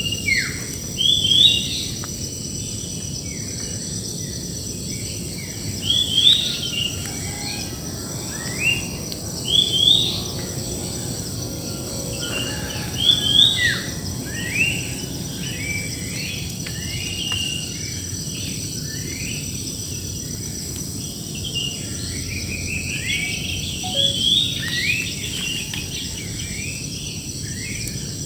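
Several birds singing short, quick chirping phrases that recur every few seconds, over a steady high-pitched insect drone.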